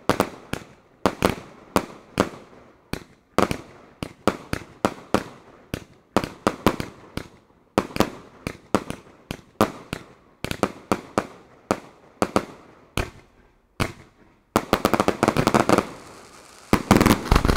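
Fireworks going off: a rapid string of sharp bangs from aerial bursts, several a second. After a short pause near the end, they merge into a dense, rapid barrage.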